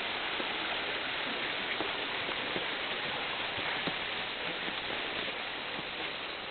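Steady rush of running water from a mountain stream beside the trail, easing slightly near the end.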